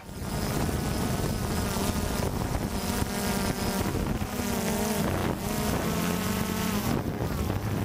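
Quadcopter drone's motors and propellers buzzing, the pitch rising and falling several times as the motors change speed.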